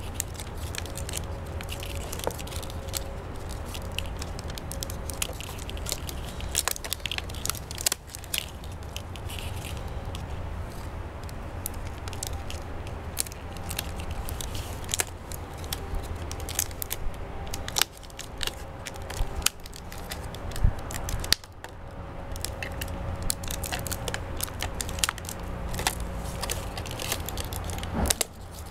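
Thin PET plastic of a cut-up gallon water jug crackling and clicking as the pieces are handled and taped together, over a steady low rumble.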